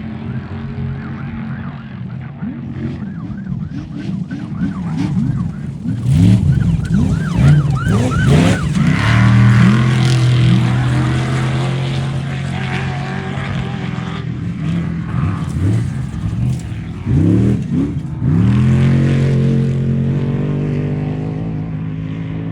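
Off-road race vehicle's engine revving hard, with many quick rises and falls in pitch. It holds a steady high pitch for several seconds near the middle, then rises and falls again in another quick burst before settling. It is loudest a little before the middle.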